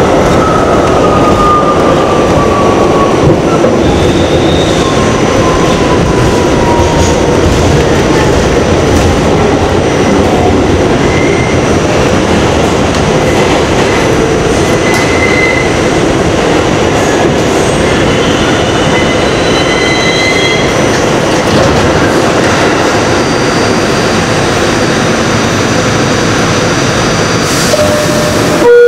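R68 subway car running loud through a tunnel, heard from inside the car, with a falling whine and brief wheel squeals as it slows into a station. A short loud tone sounds right at the end.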